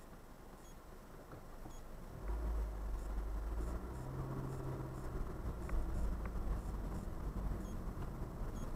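Low rumble of a car's engine and tyres as heard from inside the cabin, coming in about two seconds in and then holding steady, with a brief hum in the middle and a couple of faint clicks.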